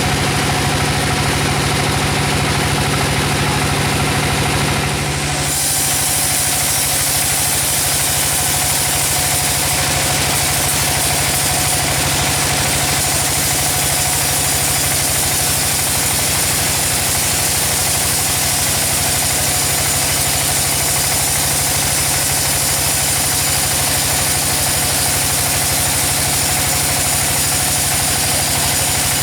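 Sawmill machinery running steadily with the drone of its engine. About five seconds in the sound changes to a noisier, hissier one and stays that way.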